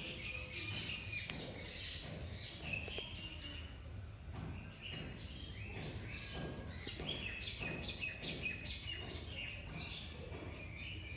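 Many small birds chirping and twittering, short high calls overlapping one another without a break, over a steady low background noise.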